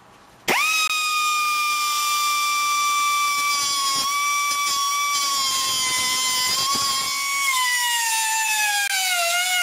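Angle grinder with a thin cutoff wheel cutting a Woodruff key slot into a steel winch drive shaft: a loud, high whine that comes in sharply about half a second in and holds steady, then sinks lower in pitch and wavers near the end.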